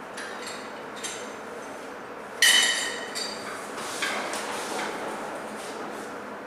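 Metal clanks and knocks from a home multi-gym machine, with one loud ringing metallic clank about two and a half seconds in.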